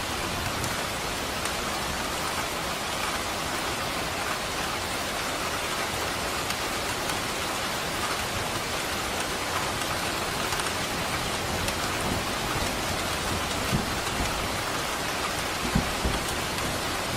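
Steady rain falling, an even continuous hiss of drops on surfaces, with a few short low thuds near the end.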